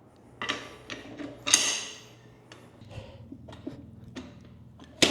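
Hands-on work at a motorcycle tire changer with a tire on its rim: scattered clicks and knocks, two brief rubbing swishes in the first two seconds, and a sharp knock near the end.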